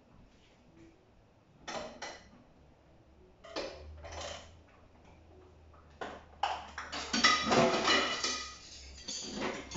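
Dishes and utensils clinking and clattering in a kitchen sink: a couple of separate knocks first, then busier clatter from about six seconds in.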